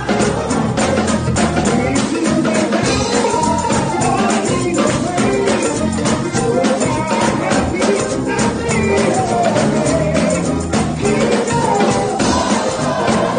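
A live gospel choir singing with a lead singer on microphone, tambourines struck on a steady beat and drums behind them.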